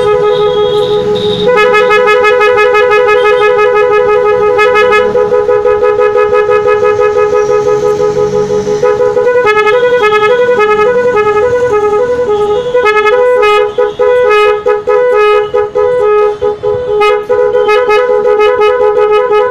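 MOCC electric snail horn driven by its multi-tone horn tuner, first sounding a steady two-note chord, then from about halfway switching between its two notes in a quick warbling, tune-like pattern, with several brief breaks later on.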